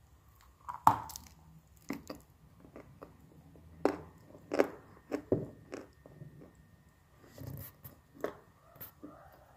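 Crunchy brown clay being bitten and chewed: a series of sharp, crisp crunches at irregular intervals, the loudest about a second in.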